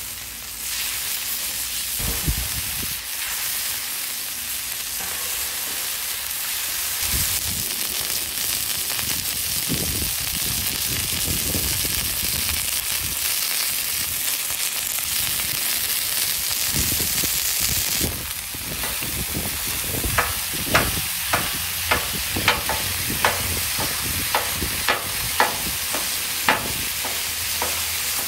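Ground-beef burger patties sizzling on a hot flat-top griddle, with a metal spatula scraping the steel. From about two-thirds of the way in, sharp clacks at roughly two a second as the spatula edge chops the meat against the griddle.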